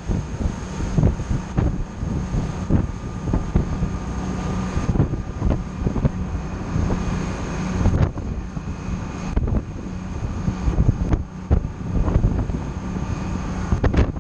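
Wind buffeting the microphone in uneven gusts on the deck of a boat running at speed, over the steady hum of its engines and the rush of its wake.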